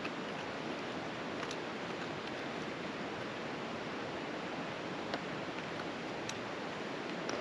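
A steady rushing hiss with a few faint, sharp clicks and scrapes of ice-tool picks and crampon points on rock.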